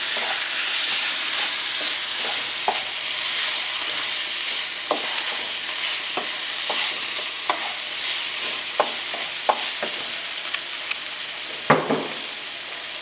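Sliced onions with crushed ginger, garlic and green chilli sizzling in hot oil, stirred with a ladle that scrapes and knocks against the pan about once a second, with one louder knock near the end. The masala is being sautéed until its raw smell goes.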